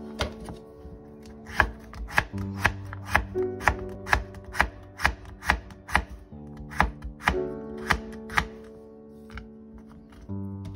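Kitchen knife slicing a carrot on a wooden cutting board: a run of sharp chops against the board, about two a second, stopping a couple of seconds before the end. Light background music plays underneath.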